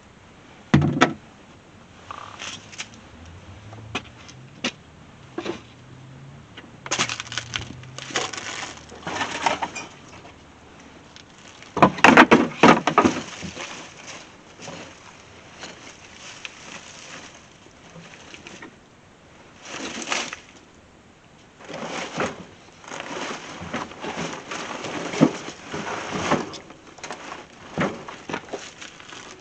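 Irregular knocks, clatter and scraping of objects being handled and moved, in bursts of a second or two; the loudest is about twelve seconds in.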